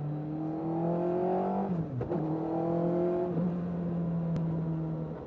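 Suzuki Hayabusa inline-four motorcycle engine in a lightweight Seven-style car, heard onboard, accelerating with rising revs, a quick upshift about two seconds in and a second pull. About three and a half seconds in the revs drop again and the engine holds a steady speed.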